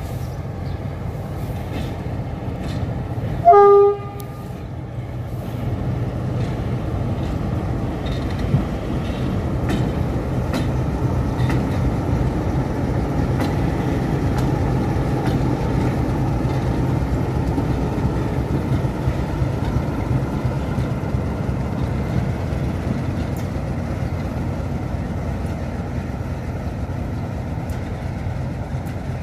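CFR class 060-DA diesel-electric locomotive: one short horn blast about three and a half seconds in, then the steady low rumble of its Sulzer 12-cylinder diesel engine and wheels on the rails as it passes, swelling and then slowly fading.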